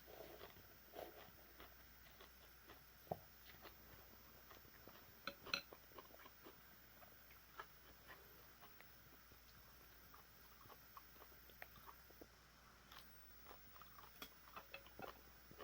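Faint eating sounds: soft chewing and scattered small clicks and taps of utensils against a bowl of noodle soup, a little louder about three and five seconds in.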